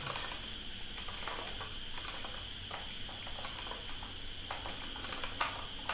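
Computer keyboard typing: soft, irregular key clicks over a steady background hiss and hum.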